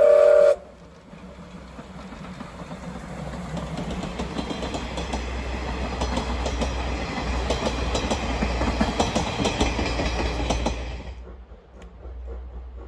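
Steam whistle of the C58 239 steam locomotive cutting off about half a second in. Then its train of coaches passes close, wheels clacking over the rail joints and growing louder. About eleven seconds in, the sound drops away sharply to a fainter one.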